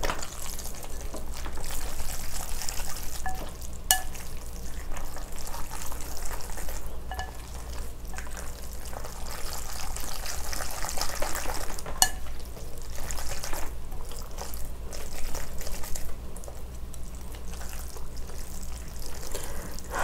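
Wooden chopsticks tossing noodles through thick, spicy red sauce in a glass bowl. The mixing makes a steady wet, sticky squelching that swells and fades, with a few sharp clicks of the chopsticks against the glass.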